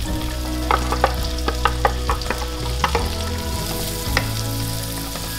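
Diced onion frying in bacon fat in a hot skillet, sizzling steadily, while a utensil stirs it and knocks against the pan several times in the first three seconds and once more about four seconds in.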